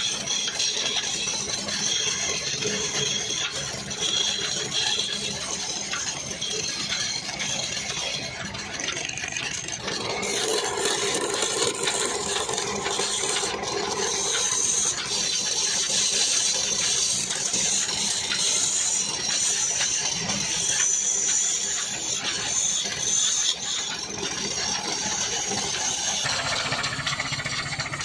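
Belt-driven wood lathe running with a steady mechanical rattle while a hand-held chisel cuts the spinning wooden spindle.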